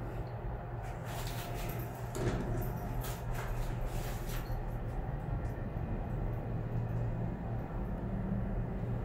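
Passenger elevator car in motion: a steady low hum inside the car, with a cluster of light clicks and rattles and one bump between about one and four and a half seconds in.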